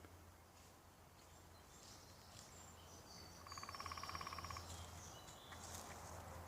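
Faint wild birds calling near a creek, with a rapid rattling trill lasting about a second midway and several high thin chirps.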